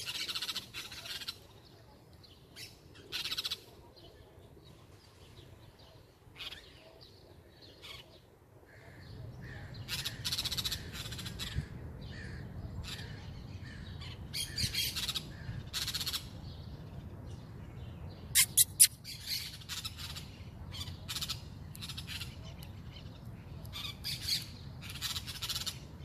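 Wild parrots calling in an agitated flock: repeated harsh calls about a second long, coming in clusters and thickening in the second half. A few sharp clicks about eighteen seconds in are the loudest moment, and a steady low rumble runs underneath from about nine seconds in.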